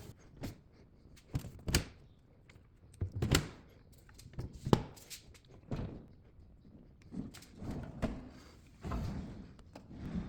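Irregular knocks and thuds, roughly one every second or so, from a new French door refrigerator being handled: its doors and drawers opened and shut.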